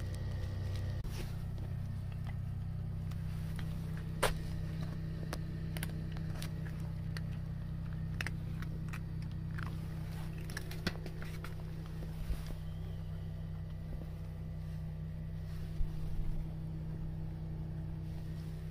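A steady low mechanical hum of running machinery, with a few brief clicks and taps scattered through it.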